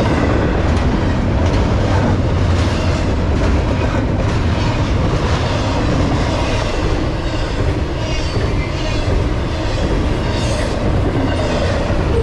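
Double-stack intermodal container train rolling past close by: a steady loud rumble of the well cars, with repeated clacks of wheels over the rail joints.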